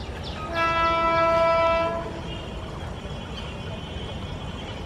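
Diesel locomotive's air horn sounds one steady blast of about a second and a half, starting about half a second in, over the low rumble of the approaching freight train.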